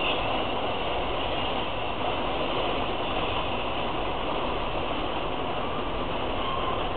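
Freight train of tank cars rolling steadily across a steel trestle: a continuous, even rumble of wheels on rail.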